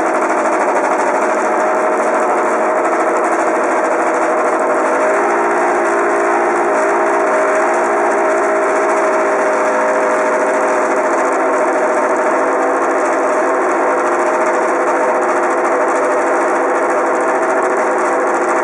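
MotoGP racing motorcycle's exhaust, close up, with the engine running at steady revs. Its note changes slightly about five seconds in.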